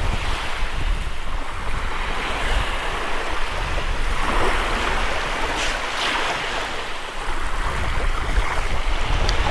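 Wind buffeting the microphone in a steady low rumble, over gentle waves washing onto a sandy shore, the wash swelling twice around the middle.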